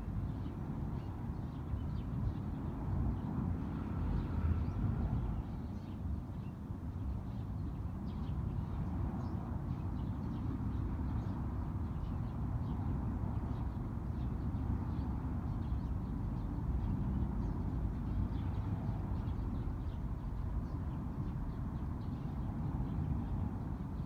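Eurasian tree sparrows chirping faintly in short scattered calls over a steady low rumble.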